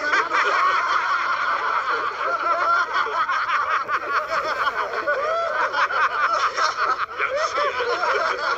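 A group of men laughing together, many voices overlapping without a break.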